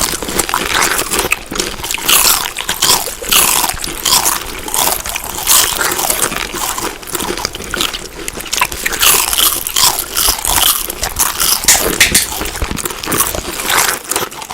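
Close-up chewing of crunchy food: a steady run of crisp, irregular crunches, several each second.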